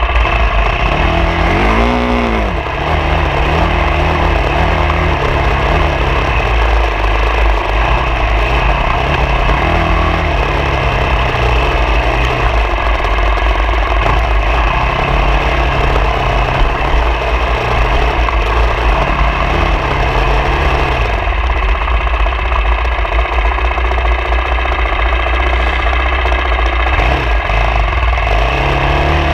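Off-road vehicle engine running under changing throttle, its revs rising and falling as it is ridden over rough ground, with a quick rev up and back down about two seconds in.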